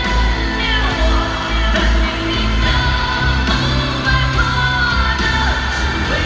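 Live pop-rock concert music: a male singer's sustained, gliding vocal lines over a loud band with heavy bass, heard from the audience.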